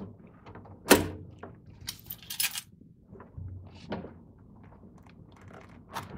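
A house cat pouncing at a laser pointer dot against a door and refrigerator: a sharp knock about a second in, a scratchy scuffle around two seconds, then a few lighter knocks.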